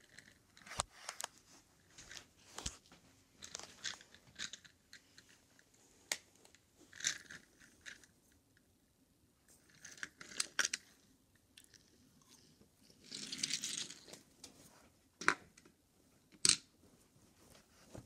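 Toy cars being handled and pushed on a tabletop: irregular small clicks, knocks and short scrapes, with one longer scrape about two-thirds of the way through.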